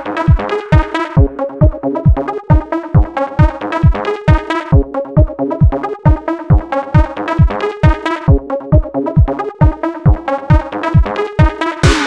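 Electronic dance music with a steady kick drum about twice a second under synthesizer chords.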